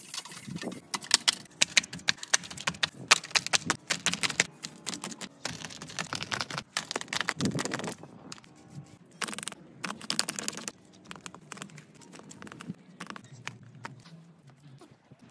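Hands mixing and kneading wet clay mud in a steel basin: irregular wet squelches and slaps that come in quick clusters, thinning out in the last few seconds.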